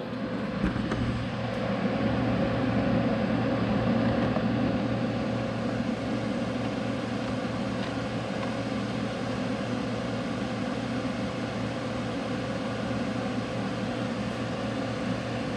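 Steady machine hum with an even hiss, a little louder for a few seconds near the start, with no clear strikes or breaks.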